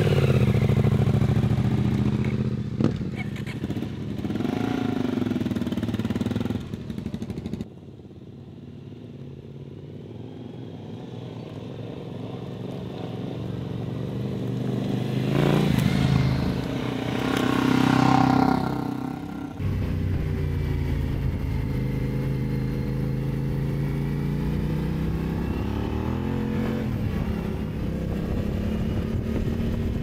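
Adventure motorcycle engines running. In the middle a bike approaches and passes, its engine note swelling and its pitch bending. From about two-thirds of the way in comes steady running as heard from the rider's seat on a gravel road.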